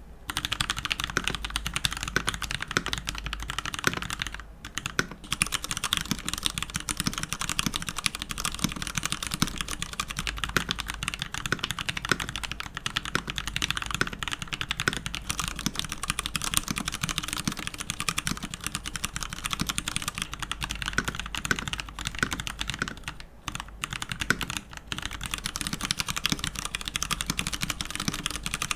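Fast, continuous typing on a Hansung TFG Art wireless mechanical keyboard fitted with lubed Pewter tactile switches, with two short pauses. The keystrokes have no case ping, which the keyboard's rubber-filled case is meant to prevent.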